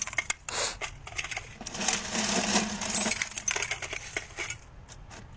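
Loose brass cartridges clinking and jingling against each other as they spill from a motorcycle and are handled in a heap, a quick run of small metallic clicks that is busiest in the middle.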